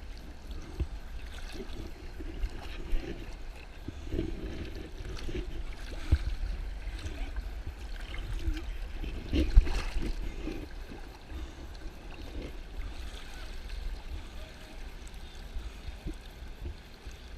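Whitewater rapids rushing, with a steady low rumble and a few sharp knocks, the loudest about nine seconds in.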